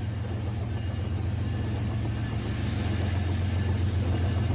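Battery-powered toy diesel train running along plastic track, a steady low hum that grows slowly louder as it approaches.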